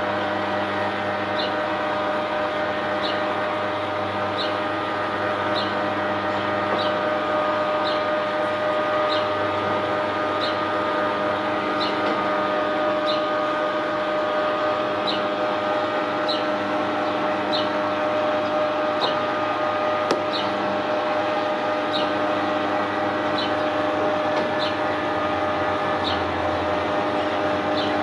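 Electric drive motor of a bioclimatic pergola rotating its aluminium roof louvres: a steady hum with a light regular click about every 0.8 s.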